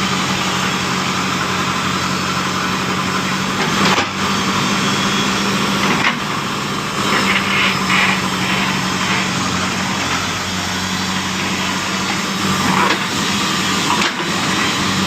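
JCB 3DX backhoe loader's diesel engine running steadily under load as it digs out coconut tree roots. A few sharp knocks come through, at about four, six and fourteen seconds in.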